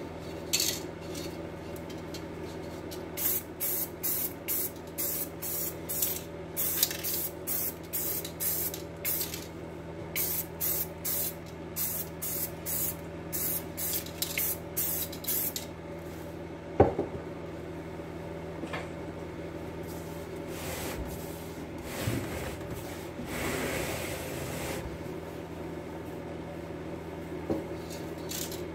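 Black paint being sprayed onto a car wheel rim in many short hissing bursts, about two or three a second, through the first half. Then a single sharp knock, and one longer, softer spray hiss past the middle, over a steady low hum.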